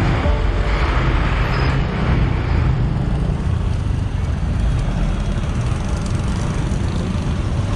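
Boda-boda motorcycle taxi riding through road traffic, heard from on the bike: a steady low rumble of engine and road noise.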